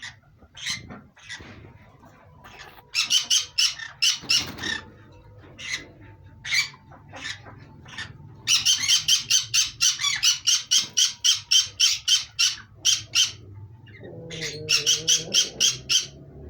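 Green pet parrots calling in runs of sharp, quickly repeated calls, about five a second. The longest and loudest run is in the middle, with shorter runs early and near the end and single calls between them.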